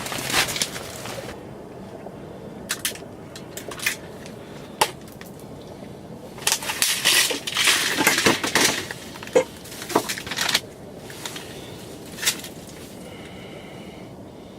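Crinkling, crunching rustle in two spells, with sharp single clicks in between, from handling small fishing tackle while rigging a stinger hook.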